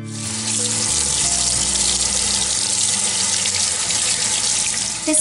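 Kitchen faucet running into a stainless steel sink while soapy hands are rinsed under the stream. A steady hiss of water comes on abruptly and dies down just before the end.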